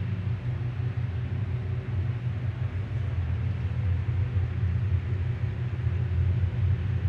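Ice cube machine running its freezing cycle, a steady low hum from the machine chilling its cube-forming fingers.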